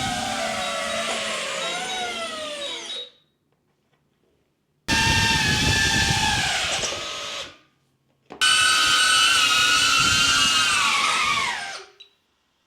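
DJI drone's propellers and brushless motors whirring with a high, many-toned whine, heard in three separate spells; near the end of each the pitch slides down as the motors spin down and stop.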